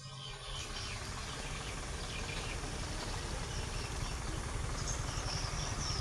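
Insects chirping outdoors over a steady low rumble, the high chirping a little stronger near the end.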